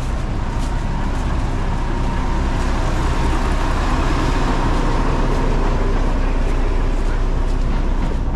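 Steady rumble of a nearby vehicle engine with road noise, loud and unbroken.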